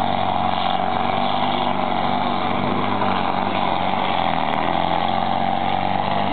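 Steyr pulling tractor's engine running hard under full load as it drags the weight sled, a loud steady drone.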